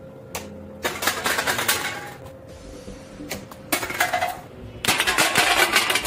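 Empty aluminium drink cans being knocked over and clattering on a tiled floor, in three noisy bursts: about a second in, near four seconds, and again from about five seconds on.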